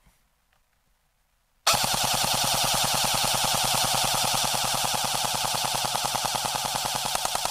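Barra 400e battery-powered AEG BB rifle firing one continuous full-auto burst of steel BBs: a rapid, even stream of shots that starts about two seconds in and stops abruptly near the end.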